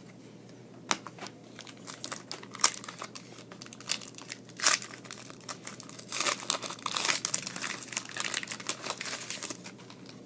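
A trading card pack's wrapper being torn open and crinkled: scattered sharp crackles a second or two apart, then a denser run of crinkling from about six seconds in until near the end.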